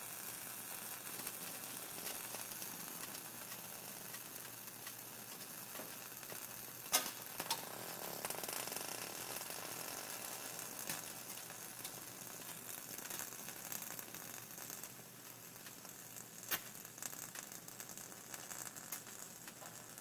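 A Maserati just after a drive, giving off a faint steady sizzling hiss with light crackling and a few sharp ticks. This is the strange after-drive sound that the owner is recording.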